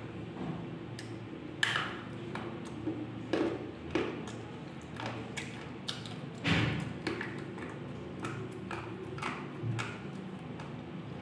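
Shaktishali slate pencils being bitten and chewed: irregular sharp crunches and snaps, the loudest about six and a half seconds in, over a steady low hum.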